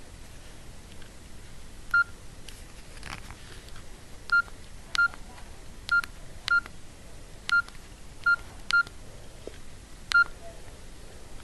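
Nokia 6124 classic mobile phone's keypad tone: nine short, identical high beeps at irregular intervals, each with a faint key click, as buttons are pressed.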